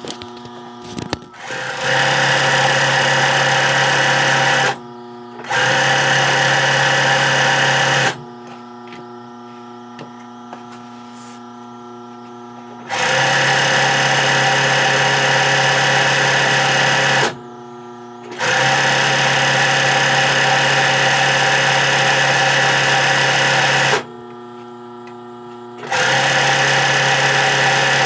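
Sewing machine stitching machine embroidery, running steadily in five spells of a few seconds each, stopping briefly between them.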